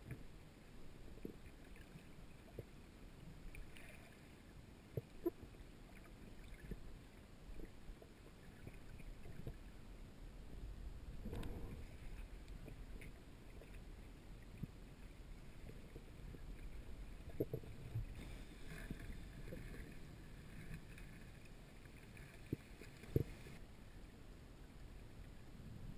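Muffled underwater ambience heard through a camera's waterproof housing while freediving: a low, steady rumble of water moving past, with a brief swell about eleven seconds in and a few scattered light clicks and knocks.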